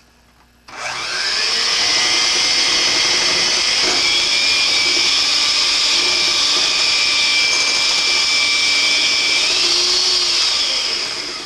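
Electric mixer starting up about a second in and running steadily while it blends creamed egg yolks and sugar into whipped egg whites for a sponge-cake batter, then winding down near the end.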